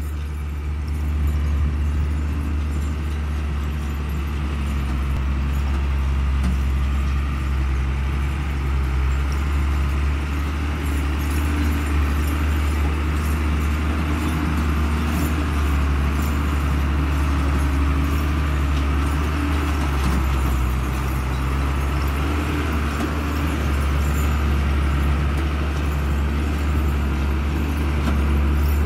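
Hino FM8J cargo truck's diesel engine running under load at a slow, steady pace as it works along a dirt track, a deep, even drone. Faint light rattles and clicks sit over it.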